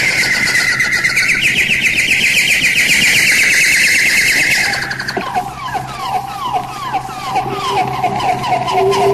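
Eerie bird-call sound effect: a fast, shrill trill for about five seconds, then a run of repeated falling calls over a steady held tone.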